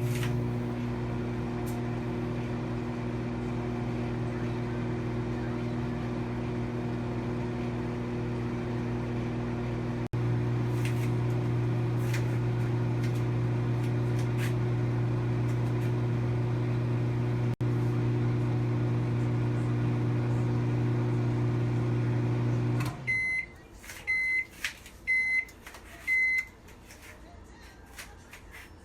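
Microwave oven running with a steady electrical hum, which cuts off abruptly near the end. Four short beeps follow, signalling that the cooking cycle has finished.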